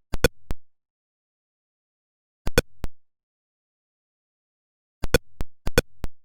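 Atari Pong-style electronic blip sound effects: four short, sharp beeps, one near the start, one about two and a half seconds in, and two close together near the end. Each beep marks the DVD logo bouncing off an edge of the screen.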